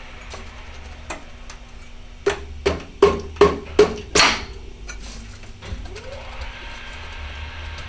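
Drive-side crank arm being fitted onto the bottom bracket spindle: about six quick knocks and clicks over two seconds, the last one longer, with a low room hum under them.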